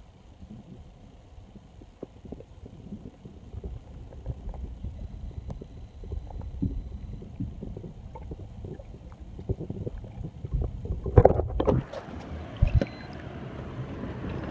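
Muffled water sloshing and rumbling, heard underwater while a largemouth bass is held and let go. A few louder splashes and knocks come about eleven seconds in.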